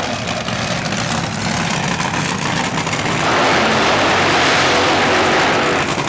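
Drag-racing dragster engine running at high revs through a burnout, with the rear tyres spinning in smoke. It is a loud, harsh, dense noise that grows louder about three seconds in.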